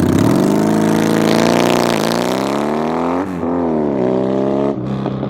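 1994 Honda Magna motorcycle engine being revved: its pitch climbs, dips and climbs again, drops sharply, rises once more, then falls back toward idle near the end.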